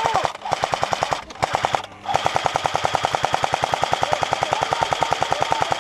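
Airsoft rifle firing on full auto: rapid, evenly spaced shots, roughly a dozen a second, in a few short bursts and then one long unbroken burst from about two seconds in.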